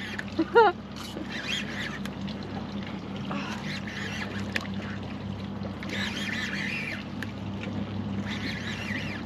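Boat motor idling with a steady low hum, under irregular patches of higher rasping noise.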